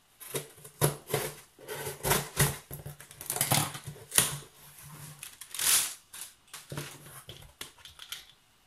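Scissors cutting through packing tape on a cardboard box, then the cardboard flaps being pulled open and handled, in a run of irregular scratching, ripping and crackling noises, with one longer rip about six seconds in.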